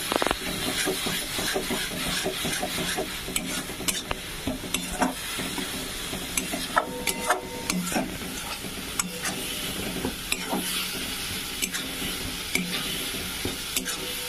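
A metal spatula stirs and scrapes a thick masala paste around a metal kadai, with irregular scrapes and knocks against the pan. Beneath it the oil sizzles steadily as the spice paste is fried down (koshano) until the oil separates.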